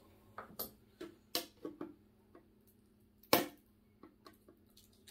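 Scattered clicks and taps of a metal Pokémon card tin being handled while its lid is worked open, with one louder knock a little over three seconds in.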